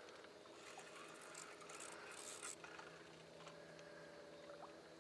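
Near silence: a faint steady hum, with a few soft scratches and rustles about one and a half to two and a half seconds in.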